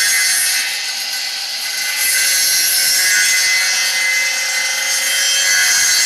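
Homemade copying machine's high-speed saw, spun by a 1.1 kW three-phase electric motor, running and cutting a wooden blank: a steady whine with a strong hiss that eases off briefly about a second in, then comes back up.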